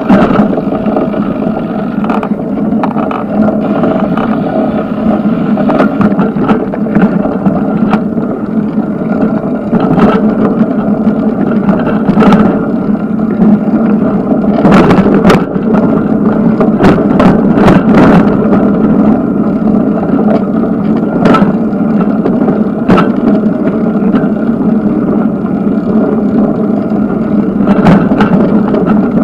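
Steady rolling rumble of a bicycle ride heard from the bike itself, with frequent sharp rattles and knocks as it goes over bumps, most of them bunched about halfway through.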